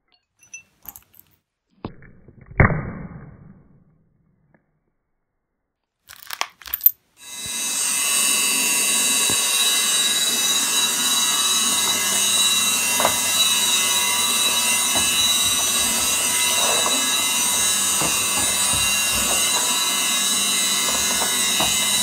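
A few sharp snaps and a crunch as glass shards are stamped on underfoot. About seven seconds in, a vacuum cleaner switches on and runs steadily with a high whine.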